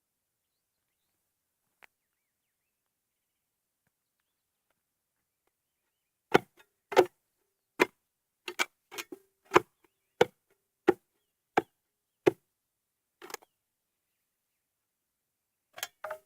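A digging tool chopping into hard shale ground. About a dozen sharp strikes come roughly every two-thirds of a second, starting about six seconds in, with a short pause before a last pair near the end.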